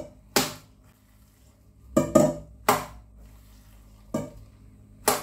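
Minced fish paste being lifted by a gloved hand and slapped back down into a stainless steel bowl, about six sharp slaps at uneven intervals. The paste is thrown like this to make it springy.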